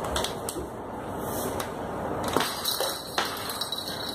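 Several light, sharp taps and knocks of kittens' paws and small plastic balls on a hardwood floor, over a steady hiss.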